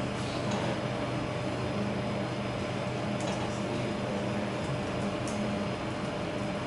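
Steady machine hum of a room, like a fan or ventilation, with a few fixed low pitches in it. A couple of faint clicks come about three and five seconds in.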